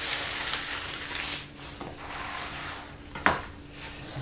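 Thin plastic bag crinkling as it is crumpled in the hands, fading after about a second and a half. A single sharp knock a little over three seconds in, over a faint steady low hum.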